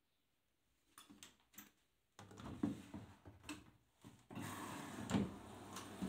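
Plastic clicks and knocks of the Arçelik 5083 washing machine's detergent drawer being handled. About four seconds in, a steady rush of water begins as the machine fills.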